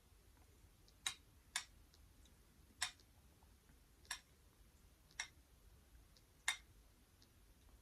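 Six short, sharp clicks at uneven intervals, about one a second, from eating: mouth and utensil clicks while tasting the dal mixed with yogurt.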